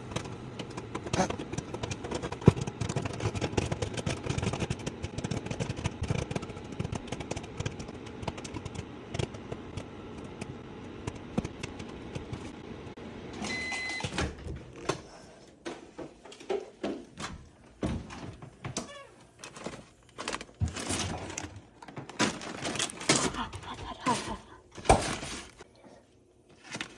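Popcorn popping inside a running microwave oven: dense, rapid pops over the oven's steady hum. About halfway the oven beeps once and the hum stops, followed by scattered knocks and rustles like the door opening and the bag being handled.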